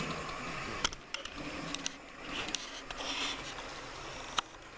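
Hornby K1 OO-gauge model steam locomotive running slowly along the track on very little power: a quiet, steady whirr of its small motor and wheels on the rails, with a few light clicks scattered through it.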